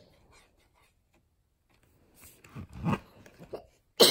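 Quiet at first, then a few soft rubbing and tapping sounds of small hands on a cardboard board book's pages, and a short loud cough near the end.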